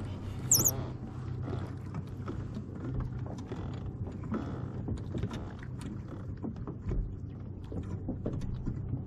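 Scattered light clicks and taps of fishing line and tackle being handled in a plastic kayak, over a steady low hum, with a brief high squeak about half a second in.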